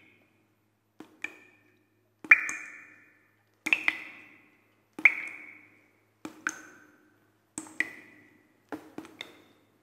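Bell-like struck pings, about one every 1.3 seconds and several of them quick double strikes, each ringing briefly and fading away.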